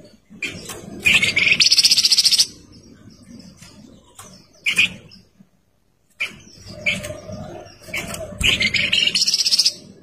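Caged kapas tembak songbird singing two loud bursts of rapid, high, trilling song, one about a second in and another from about seven seconds in, with a single short note between them.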